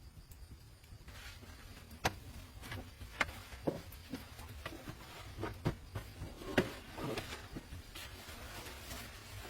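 A run of irregular light knocks and clicks, a few with a short ringing tone, over a faint low rumble.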